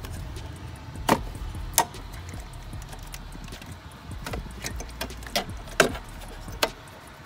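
Sharp plastic clicks and knocks, about half a dozen scattered through, from hands and a tool working the wiring-harness connectors on a Mazdaspeed 3's ECU, over a low background rumble.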